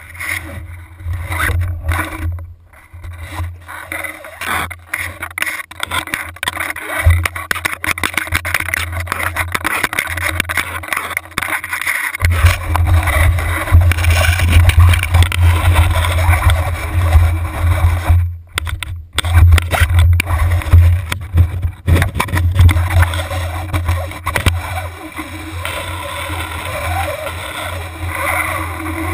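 Muffled low rumble, with rubbing and knocking, from an action camera in its waterproof housing as it is handled and dipped into lake water beside a kayak hull. Without words or clear picture cues, the exact source of each knock can't be pinned down.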